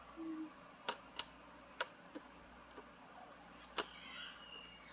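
Faint, sharp clicks and taps of toy packaging being handled: a few separate clicks about a second in and another near the end, with light rustling.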